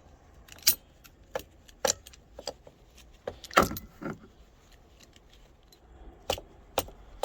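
Scattered sharp metallic clicks and clinks, the loudest about three and a half seconds in, as vice grips are worked on the nut holding a minivan's rear hatch lock cylinder.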